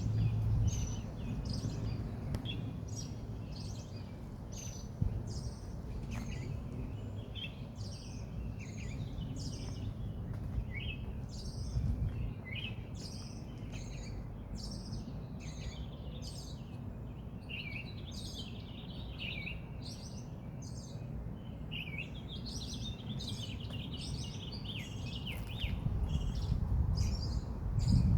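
Songbirds chirping and calling over and over, many short quick notes, over a low rumble that swells a few times.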